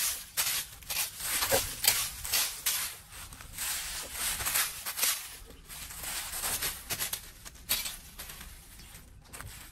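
Hand rake scratching and rustling through dry fallen leaves on concrete, in a quick run of short strokes that thin out near the end.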